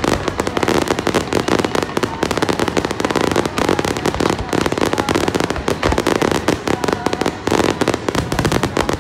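Fireworks display going off in rapid, dense succession: many bursts and crackles overlapping with no pause between them.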